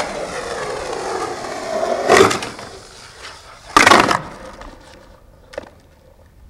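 Skateboard wheels rolling on rough concrete, then two loud clatters of the board hitting the concrete about two seconds apart, and a small knock near the end.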